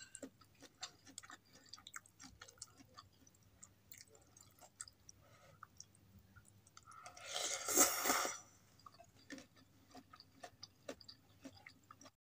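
Close-up eating of saucy instant noodles: soft wet chewing with many small clicks, and a loud noodle slurp lasting about a second and a half some seven seconds in. A faint steady low hum sits underneath.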